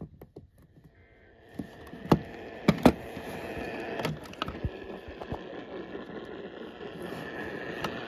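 AM radio receiver tuned to 950 kHz giving a steady hiss of static that comes up about a second in. A few sharp loud clicks and crackles stand out between two and three seconds in.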